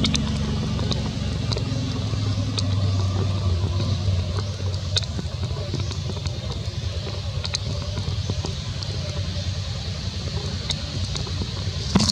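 A motor engine running steadily, a low even hum. Short sharp clicks are scattered through it, with a stronger click near the end.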